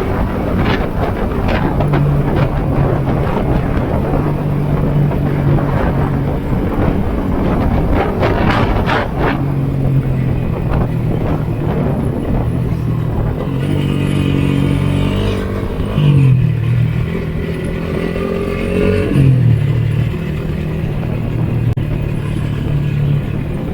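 Yamaha Sniper 150's single-cylinder four-stroke engine running under way on the ride. The exhaust note rises and falls with the throttle and drops sharply twice in the second half.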